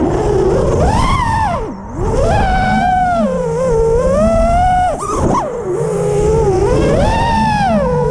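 FPV quadcopter's brushless motors whining, the pitch swooping up and down with the throttle and dropping away briefly twice.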